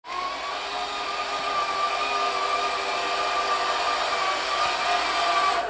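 Steady machine-like whirring with a held hum, starting abruptly out of silence and running evenly.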